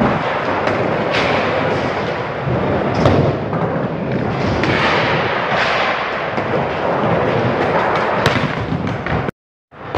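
Skateboard wheels rolling and rumbling over the ramps of an indoor skatepark, with sharp clacks and thumps of boards hitting the ramp surfaces. The sound cuts out briefly near the end.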